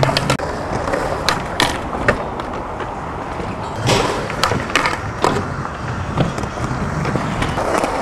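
Skateboard wheels rolling over concrete, with a series of sharp clacks from the board landing and hitting the ground, the loudest about four seconds in.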